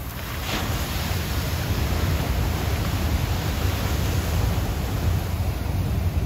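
Ocean waves breaking on a black lava-rock shore: a steady rushing surf noise, heavy in the low end, swelling slightly after about a second.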